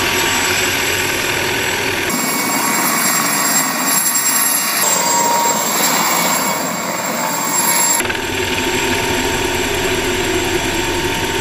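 Mosquito ultralight helicopter's engine and rotor running steadily at flight power, heard in a run of spliced clips: from the cockpit, then from the ground as it lifts into a low hover, then from the cockpit again. The sound changes abruptly about two, five and eight seconds in, where the clips cut.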